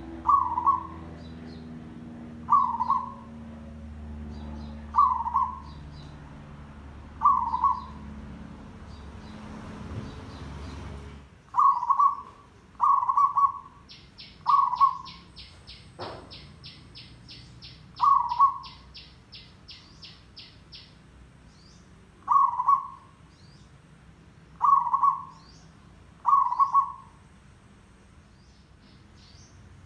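Zebra dove calling over and over: short, loud coos, one every two seconds or so, sometimes two close together.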